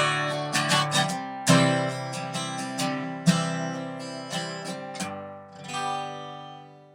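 Acoustic guitar strumming chords, the last strum about six seconds in left to ring and fade.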